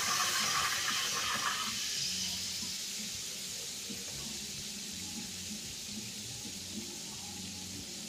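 Butter and meat skewers sizzling hard in a frying pan as a splash of white wine hits the hot fat. The hiss dies down after about two seconds to a steady, quieter frying sizzle.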